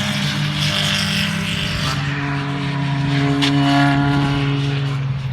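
Car engine running at a steady pitch, its note changing about two seconds in, with a short sharp crack about three and a half seconds in.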